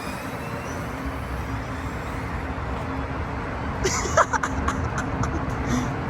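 Steady low vehicle running noise with a faint steady hum. A short cluster of clicks and chirps comes about four seconds in.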